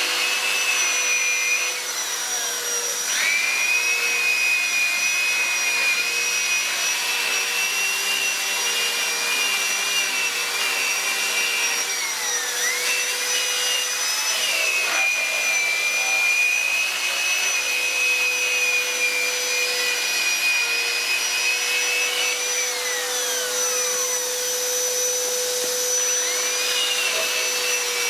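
Corded electric die grinder with a small abrasive wheel sanding carved wood: a steady high-pitched motor whine that sags in pitch for a moment several times as the wheel is pressed into the wood, then climbs back.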